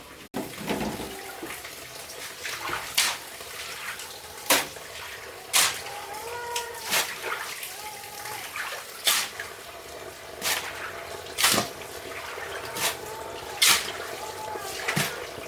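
Water splashing in short repeated strokes, roughly one every second or so, over a low steady wash.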